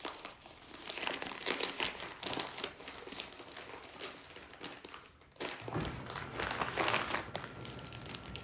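Wrapping crinkling and rustling as a carefully wrapped item is unwrapped by hand, in irregular bursts with a short pause a little past halfway. A low steady hum comes in after the pause.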